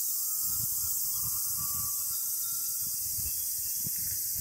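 Summer cicadas droning in a steady, shrill chorus, with wind buffeting the microphone in low gusts.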